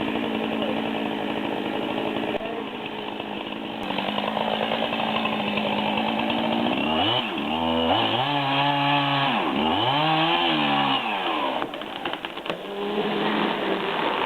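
Two-stroke chainsaw cutting into a black cherry tree. It runs steadily at first, then about halfway through the engine pitch swells up and drops back twice as it revs.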